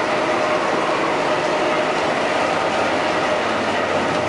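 Narrow-gauge diesel locomotive running steadily beside the platform, a constant droning hum with a steady tone held through it.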